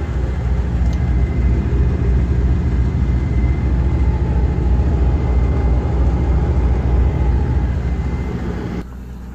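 Steady rumble of a tour bus driving on a highway, heard from inside the cabin: engine and road noise. It drops to a quieter hum near the end.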